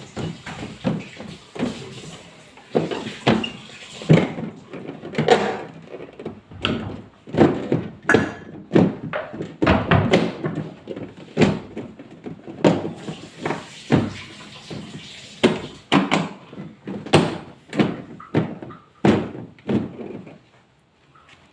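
Irregular knocks and clunks of hard parts being handled and set down, about one to two a second, dying away near the end.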